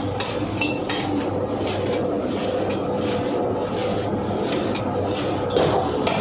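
Metal ladle scraping and knocking against a steel wok as fried rice is stir-fried and tossed, about two strokes a second, over a steady rushing hiss and hum.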